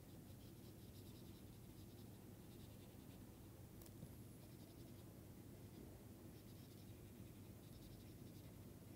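Faint scratching of a stylus on a tablet screen in several short spells as shapes are coloured in, over a low steady room hum.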